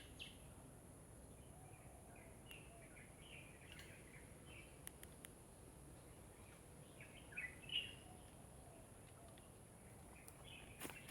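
Quiet outdoor ambience: faint scattered bird chirps, the clearest a little past halfway, over a steady high hiss.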